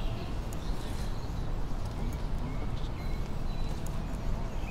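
Footsteps on a garden path over a steady low outdoor rumble, with scattered sharp clicks and a few faint, short high chirps.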